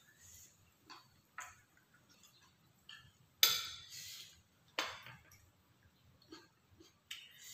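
A spoon clinking and tapping on a plate while eating: a few scattered sharp clinks, the loudest about three and a half seconds in.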